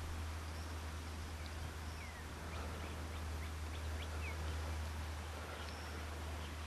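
Field ambience: a steady low hum, with faint short bird chirps scattered through it, most of them in the middle few seconds.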